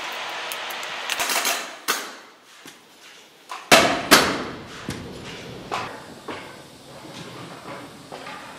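Industrial sewing machine running steadily for about the first second and a half, then a series of sharp knocks and thumps of upholstery work, the two loudest close together about four seconds in, followed by lighter taps.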